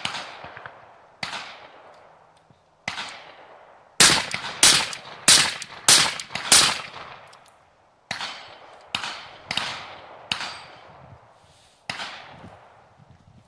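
Rifle shots from a suppressed 5.56 short-barrel rifle firing M193 55-grain ball, each a sharp crack with a ringing tail. About four seconds in, a string of five louder shots comes roughly two-thirds of a second apart. Fainter single shots come before and after it.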